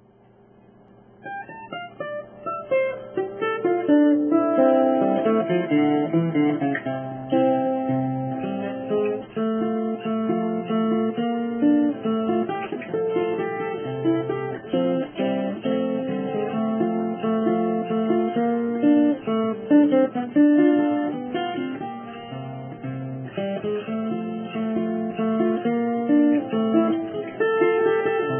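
Background music: plucked acoustic guitar playing a melody, fading in over the first few seconds.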